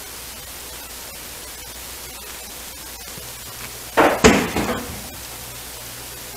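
Steady hiss, broken about four seconds in by a short burst of knocks and clatter from hands working at a cast-iron skillet on the stove.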